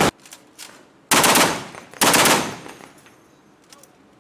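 M2 .50-calibre heavy machine gun firing: a burst cuts off just after the start, then two short bursts about a second apart, each trailing off as it fades.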